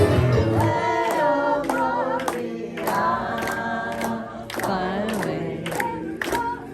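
Voices singing together without instruments, over steady hand claps about two a second. A band with bass fades out in the first second.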